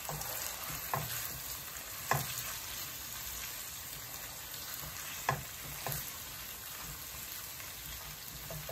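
Sliced onions sizzling in hot oil in a nonstick frying pan on high heat, stirred with a wooden spoon that knocks against the pan about four times.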